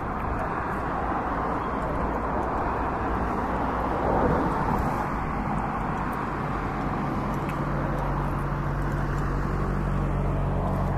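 Steady road-traffic noise, with a vehicle engine humming close by from about halfway through. A few faint sharp pops come from the distant fireworks.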